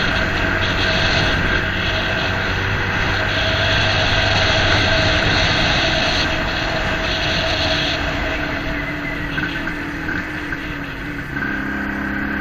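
Engine of a moving vehicle running steadily under way, with road and wind noise. About eleven seconds in, the engine note changes to a new steady pitch.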